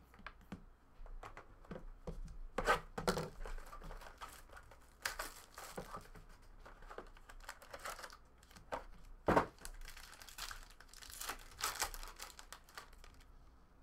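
A trading-card hobby box being opened and its foil-wrapped pack torn open: irregular tearing and crinkling of foil wrapper and cardboard, with a sharp snap about nine seconds in.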